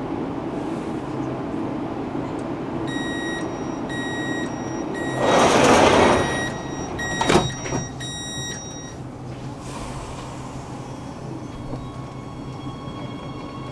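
Metro train doors closing at a station: a series of high warning beeps, a loud rush of noise as the doors slide, and a thud as they shut. Then a rising electric whine as the traction motors start the train away.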